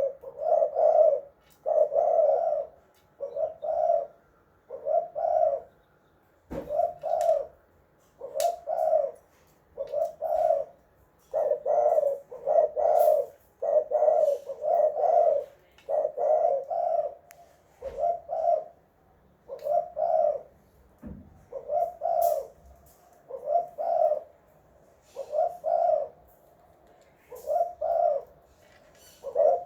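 Spotted dove (tekukur) cooing over and over: short, low coos strung in quick twos and threes with brief pauses between groups. A few faint clicks come between the coos.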